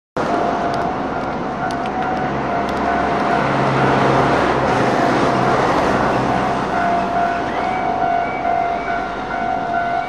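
Japanese level-crossing warning bell ringing its steady electronic clang, with a second, higher tone joining near the end. Underneath, a broad rush of passing vehicle noise with a low engine hum swells around the middle.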